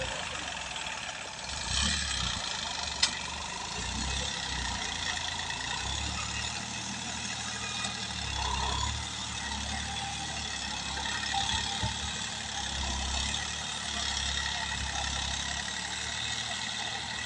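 Farm tractor's diesel engine running steadily as it works a rear levelling blade through loose soil, with a single sharp click about three seconds in.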